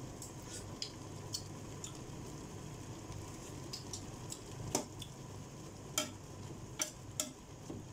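Metal slotted ladle stirring shrimp in sauce in an aluminium pot, with light scattered clinks of the ladle against the pot, louder and more frequent in the second half, over a faint steady simmering hiss.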